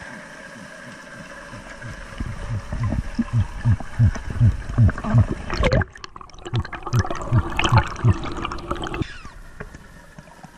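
Underwater sound through an action camera's waterproof housing: water sloshing and gurgling over a run of muffled low thumps, about three a second, with a faint steady hum underneath. Just before the middle a loud rush cuts out almost to nothing, then the thumping and sloshing pick up again and die away near the end.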